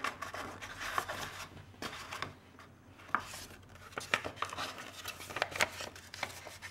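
Glossy magazine paper being folded and pressed by hand as the bottom of a small paper bag is shaped: scattered crinkles, rustles and small taps.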